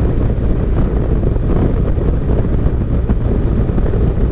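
Motorcycle engine running while the bike is ridden, with wind rushing over the microphone; a steady low-pitched noise.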